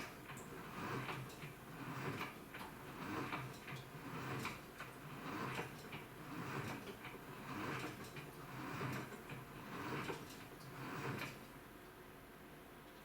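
AQUA washing machine with a direct-drive inverter motor agitating, swishing the water and laundry back and forth about once a second. The strokes stop about a second and a half before the end.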